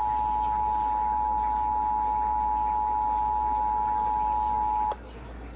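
Emergency Alert System two-tone attention signal, 853 Hz and 960 Hz sounded together over a radio broadcast, announcing an EAS message (here the Required Monthly Test). The steady dual tone cuts off suddenly about five seconds in, leaving faint broadcast hiss.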